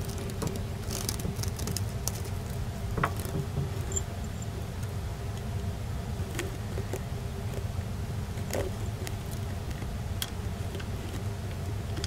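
Scattered small clicks and taps from a leopard gecko at a ceramic dish, over a steady low hum.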